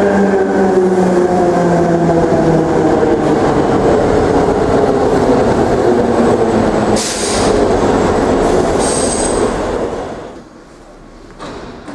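Historic Hamburg S-Bahn ET 471 electric train braking into an underground station. Its motor whine falls in pitch over the first few seconds over the rolling noise. There is a short hiss about seven seconds in, a high squeal near nine seconds as it slows, and the sound drops away at about ten seconds.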